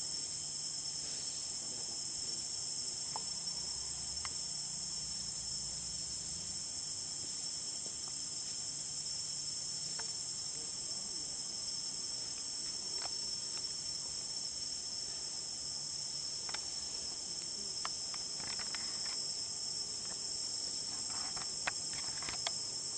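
A steady, high-pitched chorus of insects drones without a break, with a few faint ticks and rustles scattered through the second half.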